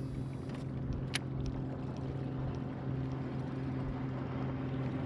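Steady low hum of a boat motor running on the water, holding one even pitch, with a single sharp click about a second in.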